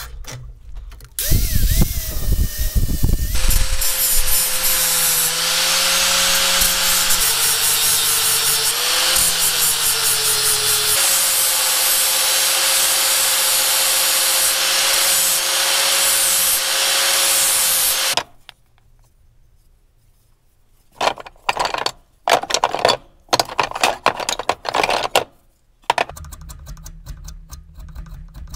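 Angle grinder with a flap disc grinding the rust off a steel hammer head, running steadily for about fifteen seconds. After it stops comes a run of short, separate scraping strokes.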